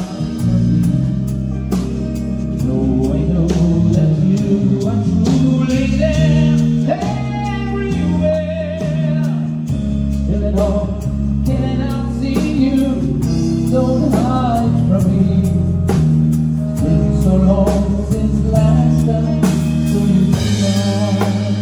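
Live band playing: a singer's wavering melody over a stepping bass line, drum kit and guitar, starting abruptly at full level.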